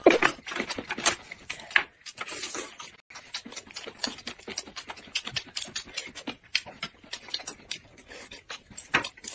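Close-miked mouth sounds of two people eating boiled dumplings: chewing and lip smacking, with many quick, irregular wet clicks.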